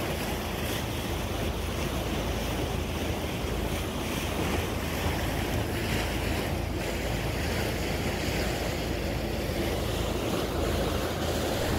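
Steady rush of sea water along the hull of a moving tour boat, mixed with wind buffeting the microphone.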